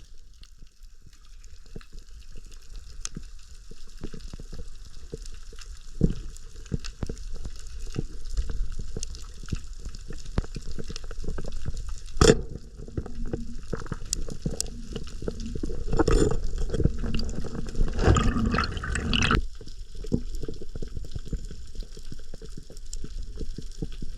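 Underwater water sound: a steady low rumble of moving water with scattered clicks and crackles, one sharp knock about halfway through, and a louder stretch of rushing water noise lasting a few seconds near the end.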